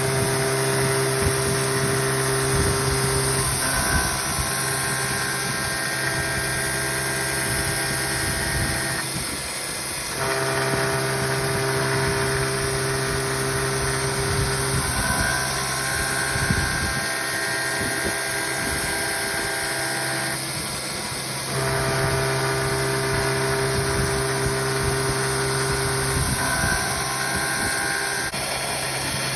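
ProtoTrak CNC mill cutting D2 tool steel. The spindle and cut give a steady whine made of several tones, and the pattern repeats about every ten to eleven seconds as the tool makes pass after pass, with a brief dip and change in pitch between passes.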